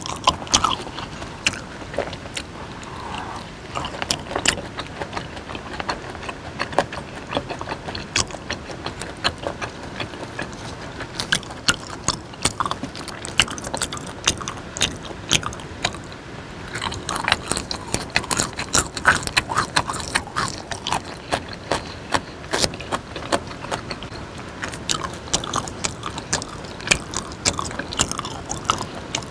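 Close-miked chewing and biting of raw beef dipped in chili sauce: wet mouth clicks and smacks, thicker in the second half.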